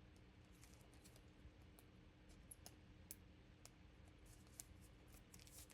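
Faint, scattered clicks of trading cards being handled: a card slid into a plastic sleeve and toploader, with a few quick clicks together near the end.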